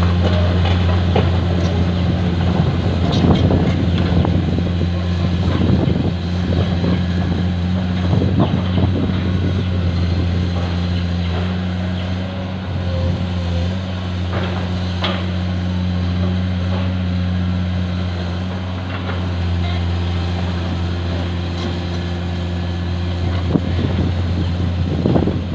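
Heavy diesel engine of construction machinery running steadily at a constant speed, a low even drone, with a few scattered knocks and clanks.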